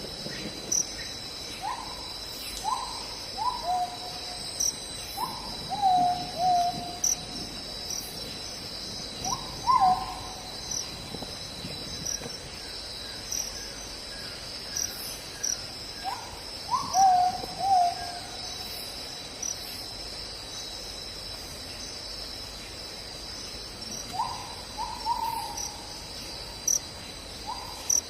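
Night forest chorus: a steady high-pitched trill of insects such as crickets. Over it come groups of short calls from a night animal every few seconds, each a sharp higher note dropping to a lower, held one.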